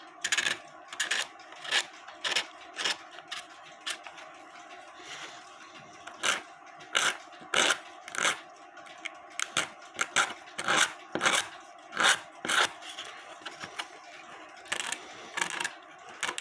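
A utility knife blade scraping old bellows material and glue off a wooden cuckoo clock bellows, in short irregular strokes about one or two a second.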